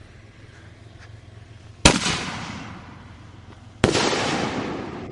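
Two fireworks going off about two seconds apart, each a sharp bang that trails off gradually.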